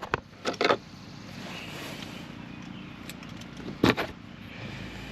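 Hand tools clinking: a few light metallic clicks in the first second, then one sharp knock about four seconds in, over a steady low hum.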